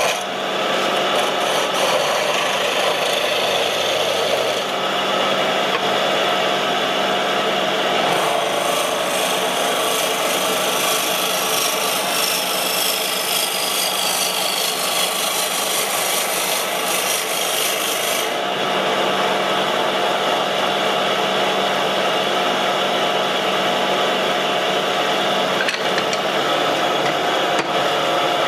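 Wood lathe running while a turning tool cuts into a spinning pine blank: a steady rasping of wood being cut over the machine's constant hum, the cutting noise strengthening and easing a few times as the tool works.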